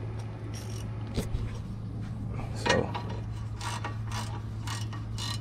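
Ratchet wrench with a 13/16 socket tightening the castle nut on a Chevy truck's new tie rod end: its pawl clicks in a series of short strokes over a steady low hum.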